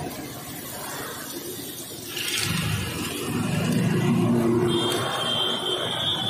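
A motor vehicle engine running nearby, swelling and fading. A high, steady tone sounds for about two seconds near the end.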